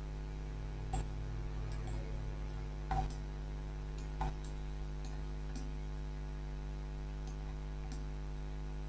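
About half a dozen scattered soft clicks of a computer mouse, over a steady low electrical hum.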